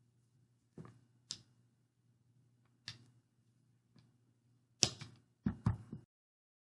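Knocks and taps of a rolling pin on a table as Play-Doh is rolled out: a few scattered taps, then a cluster of louder knocks about five seconds in.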